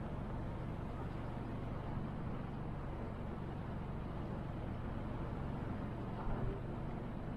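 Motorboat engine running steadily under way, a low even drone, with a brief thump about six seconds in.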